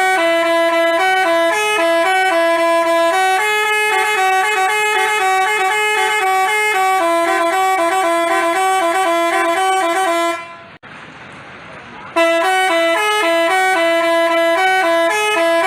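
Basuri telolet bus horn playing a quick multi-note melody of horn blasts. It breaks off about ten seconds in and starts the tune again about two seconds later.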